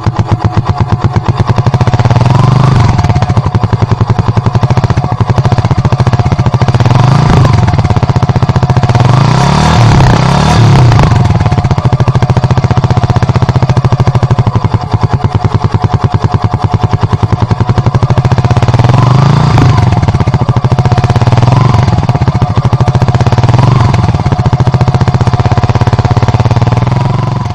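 Suzuki Gixxer 155 motorcycle's single-cylinder engine running at idle, revved up and let back down about six times. Loud throughout.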